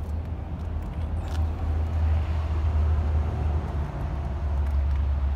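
Volkswagen Golf engine idling, heard up close at the rear of the car as a steady low rumble.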